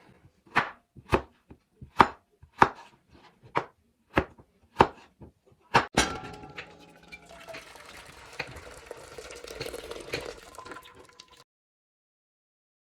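Kitchen knife chopping peeled raw potatoes into cubes on a cutting board, sharp knocks about two a second, followed by a few seconds of softer clattering and scraping that stops abruptly.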